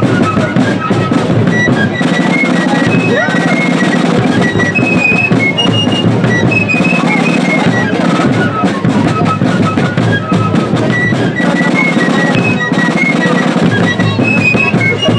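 Fife and drum corps playing a tune: shrill fifes carry a melody of quick, changing notes over snare drum rolls and bass drum beats.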